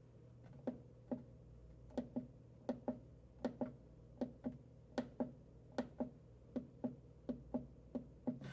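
Coofly S1000 portable power station clicking over and over, in quick pairs about every three quarters of a second, each click with a short dull ring. This is the unit being switched on and cutting straight back off, the fault that keeps it from staying on.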